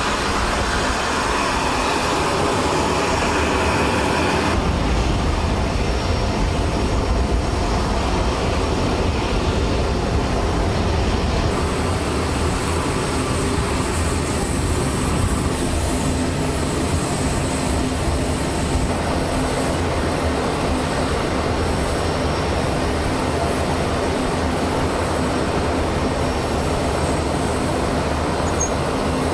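Steady, loud vehicle or machinery noise with a deep rumble and no clear rhythm. Its character changes about four and a half seconds in.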